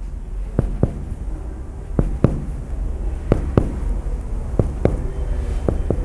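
Finger percussion of a child's chest: a finger striking a finger laid flat on the chest wall, in five pairs of sharp taps, the two taps about a quarter second apart and a pair roughly every second. The pairs step down the right mid-axillary line, one intercostal space after another, to find where the note turns dull over the upper border of the liver.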